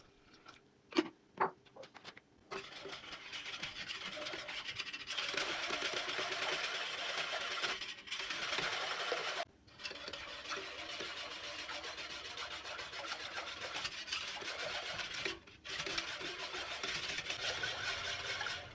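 A few light knocks, then fast repeated rubbing or scraping strokes that go on for most of the time, stopping briefly three times.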